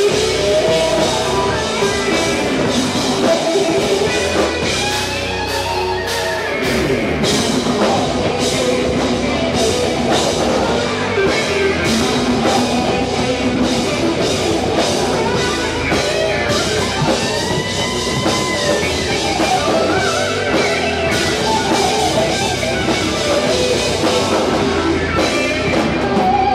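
A rock band playing live: electric guitar over a drum kit with steady cymbal and drum hits, loud throughout.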